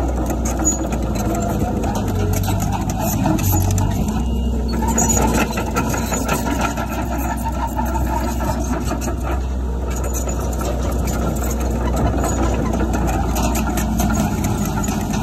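Diesel engine of heavy earthmoving machinery running steadily, with many small clicks and rattles over it; its low note shifts about four seconds in.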